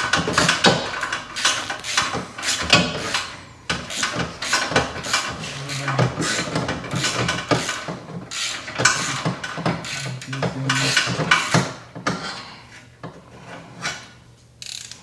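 Hand tools and exhaust hardware clattering and scraping during work under a car: a dense run of irregular knocks, rattles and rubbing that thins out about twelve seconds in.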